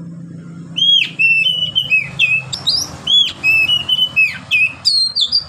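Caged male Oriental magpie-robin (kacer) singing loudly: a fast, unbroken run of clear whistled notes, many sliding down in pitch, starting about a second in.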